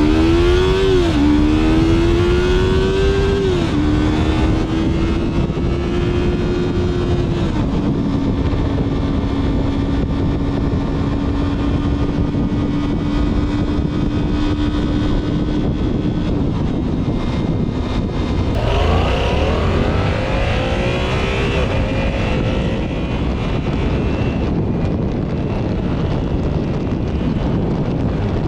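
Yamaha YZF-R series sport motorcycle's parallel-twin engine accelerating through the gears. The pitch climbs and drops back at each upshift, about one, four and eight seconds in, then holds a steady note while cruising, and the engine picks up again about 18 seconds in. A steady low rush of noise runs underneath.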